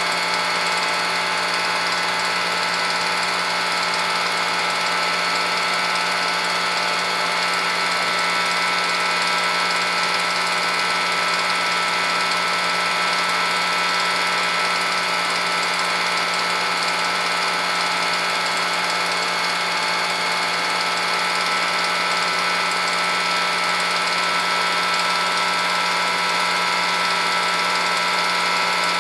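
Film projector running: a steady mechanical whir with constant tones, unchanged throughout.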